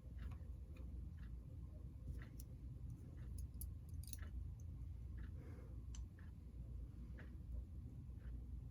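Faint, irregular small clicks and taps of tiny screws and parts being handled while fitting the motor into a model train locomotive, over a low steady hum.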